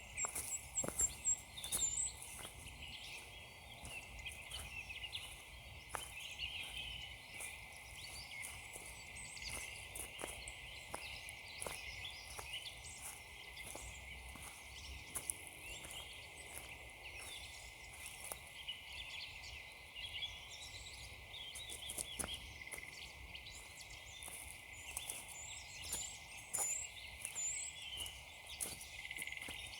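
Steady walking footsteps crunching on frozen ground, about two steps a second, with small birds chirping throughout. A quick run of high repeated bird notes comes at the start and again near the end.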